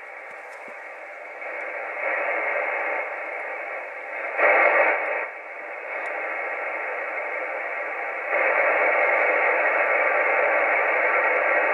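Ranger AR3500 ten-metre radio receiving, its speaker giving out steady band static and hiss that steps louder several times, with a brief louder burst about four and a half seconds in. No mains hum sits under the static.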